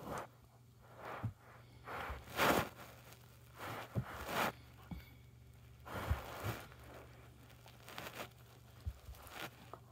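A young dog chewing and mouthing a rubber ball, heard as irregular short rustling, slobbery bursts with a few soft low thumps.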